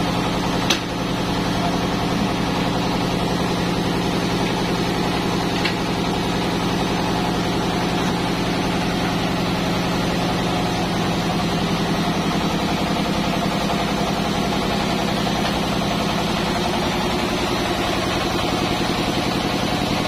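Band sawmill running steadily, a constant machine hum with a low drone. A single sharp knock about a second in.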